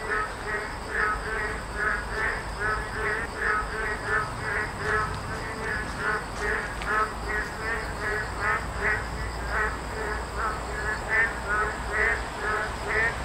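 Frogs calling: short croaks repeated about twice a second in a steady chorus.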